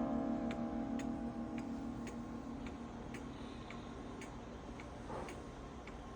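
Antique cuckoo clock's brass plate movement ticking steadily, about two ticks a second. Over the first few seconds the ring of a just-struck chime dies away.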